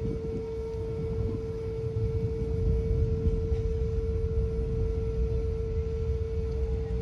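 A wind instrument holds one long, steady note over a low rumble.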